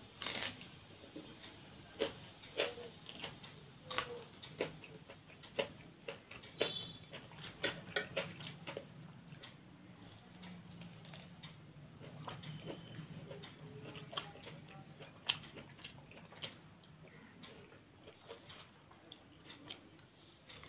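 A person eating by hand and chewing close to the microphone: irregular wet clicks and smacks of the lips and mouth, about one or two a second, with soft chewing between them.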